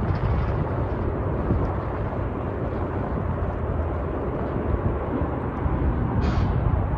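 Wind buffeting the microphone outdoors: a steady, uneven low rumble with no clear pitch.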